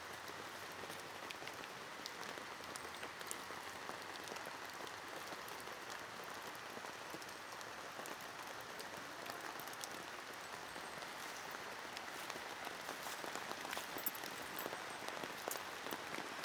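Steady rain falling, an even hiss with many small drops ticking.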